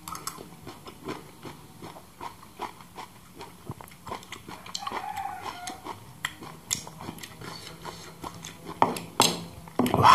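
Close-up eating sounds: a metal spoon scraping and tapping pomelo pulp on a banana leaf, with wet chewing and lip smacks. A short hummed 'mm' comes midway, and loud sharp breaths through pursed lips come near the end.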